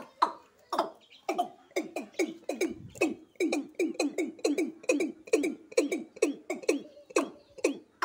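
Male watercock calling: a long series of short, repeated notes, each falling slightly in pitch, about three a second and quickening a little in the middle.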